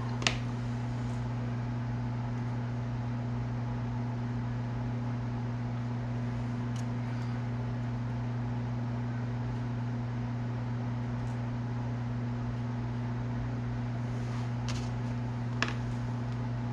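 A steady low electrical hum, like a small motor or fan running, with a light click just after the start and another near the end.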